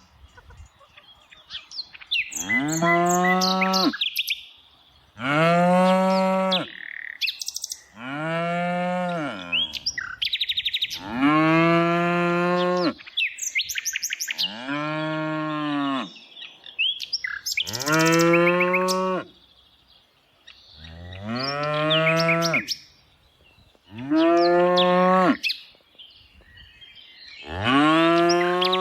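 Cow mooing over and over, about nine long moos that each rise and then fall in pitch, spaced about three seconds apart. Birds chirp faintly between the moos.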